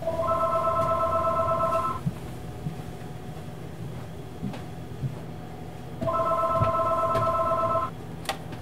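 Cordless telephone ringing twice with an electronic ring, each ring about two seconds long with about four seconds of silence between. A sharp click comes just before the end.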